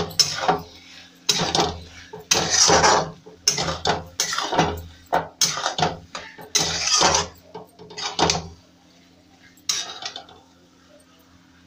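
Spatula scraping against a metal kadhai while stirring peas and mushrooms in masala. There is a quick run of scraping strokes for about eight seconds, then one more stroke and a pause near the end.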